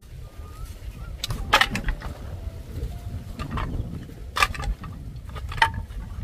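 Dry cut bamboo pieces clacking against one another as they are picked up and handled from a pile: several sharp, separate clacks, the loudest about a second and a half in and again past the middle, over a steady low rumble.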